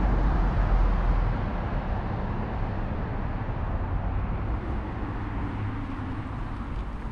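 Road traffic rumbling, loudest at the start and fading over the first couple of seconds to a steady low traffic hum.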